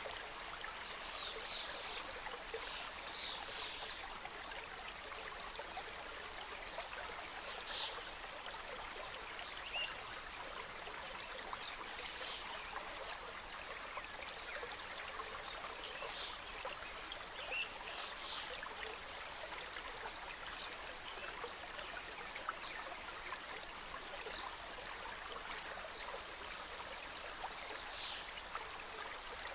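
Mountain stream cascading: a steady rush of flowing water, with short brighter splashes scattered through it.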